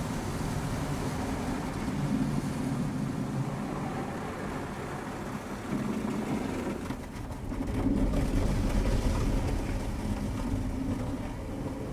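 Car being washed: a steady, low wash of noise that swells louder for a couple of seconds about eight seconds in.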